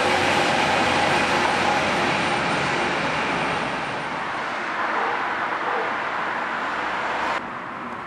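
Regional passenger train passing close by: a steady rush of wheel and rolling noise with a faint hum. About seven seconds in it drops abruptly to a quieter, distant background.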